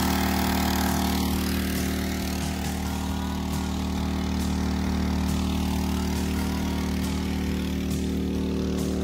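Small gasoline engine of a portable water pump running steadily at a constant speed, pumping water out of a pond through a hose line.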